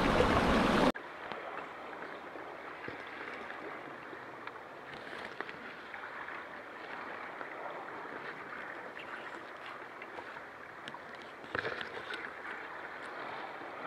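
Muffled underwater hiss heard through a camera's waterproof housing on a baited crab drop net, with faint scattered ticks and a few small knocks near the end. For the first second, before a cut, wind and sea noise at the cliff edge.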